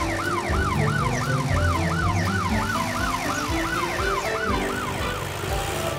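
Cartoon emergency-vehicle siren wailing quickly up and down, about three sweeps a second, fading somewhat near the end. The emergency vehicles have their flashing lights and sirens on.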